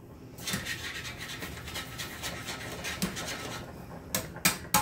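Rustling and scraping as kitchen items are handled, running for about three seconds, then three sharp knocks near the end.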